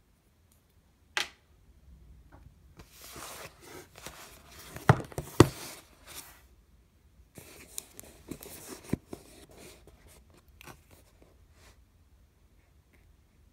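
Fingers handling a cardboard box and picking at its tape seal: scraping and rustling of paperboard with a few sharp taps and clicks, the loudest two close together about five seconds in.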